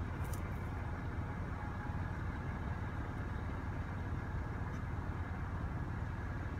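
Vehicle engine idling: a steady, low, even hum.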